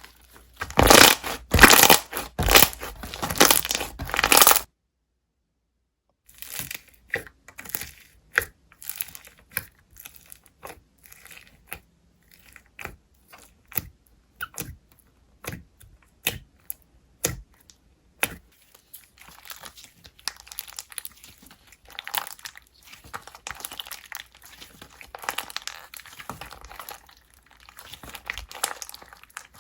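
Slime being squished and poked by hand. Dense crackling at first, then a short dead silence, then sharp clicks about once a second, turning to denser crackling again in the last third.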